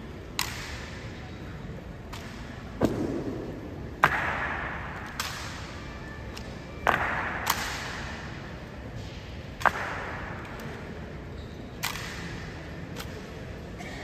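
Sharp clacks and thuds, about ten at uneven intervals, each echoing in a large stone hall. These are honor guard boot heels striking the floor and rifles handled in drill during the changing of the guard.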